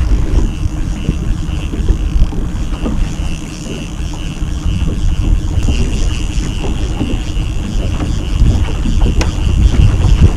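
Small outboard motor running steadily at trolling speed, with wind buffeting the microphone in uneven gusts over it.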